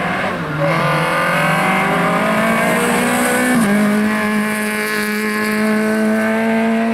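Peugeot 208 rally car engine running hard at high revs, held at a steady pitch as the car drives past. The pitch steps down once about halfway through.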